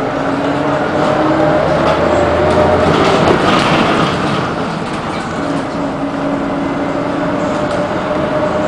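City bus interior while under way: engine and drivetrain drone over road noise, with a whine that climbs in pitch during the first couple of seconds and again near the end as the bus gathers speed.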